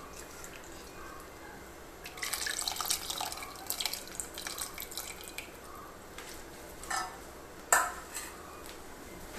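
Tamarind juice squeezed by hand and dripping and splashing into a pot of curry, in a busy run of small drips about two seconds in. Near the end, a single sharp knock.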